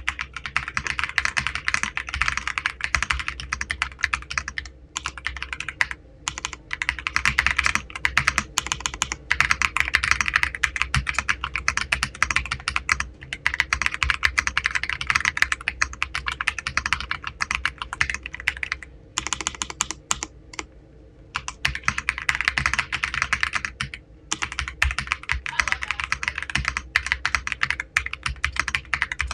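Fast typing on a Royal Kludge R65 mechanical keyboard: a dense, rapid run of key clicks, broken by a few short pauses.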